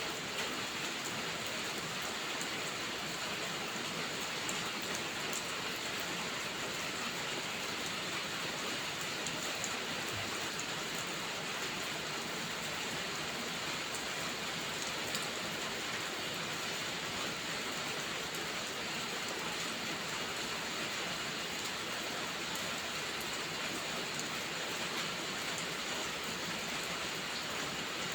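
Steady rain falling: an even hiss with scattered individual drops ticking through it, unchanging throughout.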